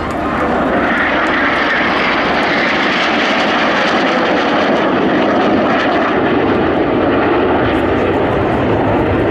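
Formation of Canadair NF-5 jets with twin J85 turbojets flying overhead: a loud, steady jet roar that sinks lower in pitch after the first few seconds.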